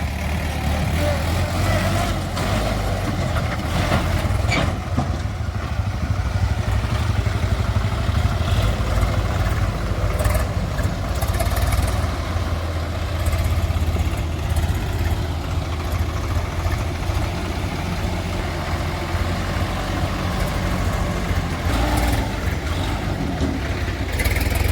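Heavy diesel engine running steadily at a low, even rumble, with a few faint knocks over it.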